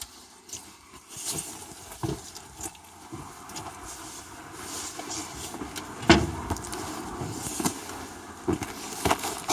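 Irregular clunks, clicks and rattles, with one sharp, loud knock about six seconds in.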